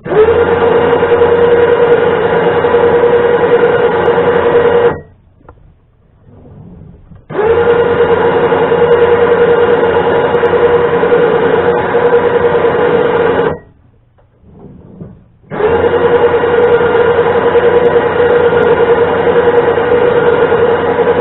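Electric winch motor running in three runs of about five to six seconds, with short pauses between, giving a steady, even whine as it spools the cable.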